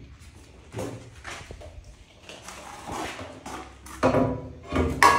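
Ceramic floor tiles and tiling tools being handled: irregular knocks, scrapes and clatter against plastic buckets, loudest about four and five seconds in.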